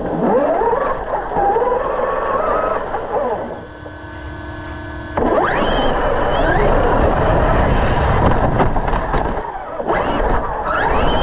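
Brushless electric motors of large RC monster trucks whining up and down in pitch under bursts of throttle, over a steady rush of noise. One burst rises and falls, then from about five seconds in comes a longer, louder run, with another rising whine near the end.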